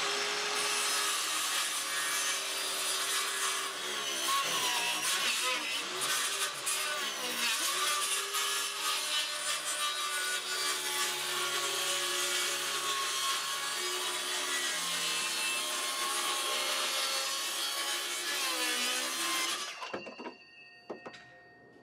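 DeWalt cordless circular saw cutting a long cut through a plywood shelf board, the motor's pitch dipping and wavering under load. The saw stops about twenty seconds in.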